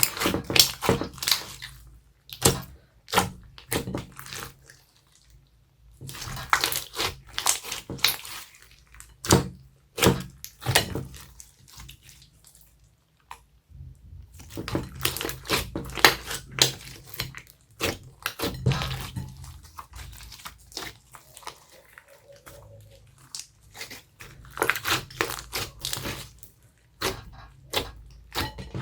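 Homemade slime squished and kneaded by hand, giving wet squelches and quick popping clicks in bursts, with short pauses between.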